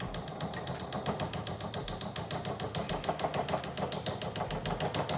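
Rapid, even clicking at a gas stove, about eight or nine sharp clicks a second and keeping on without a break, over a low steady hum.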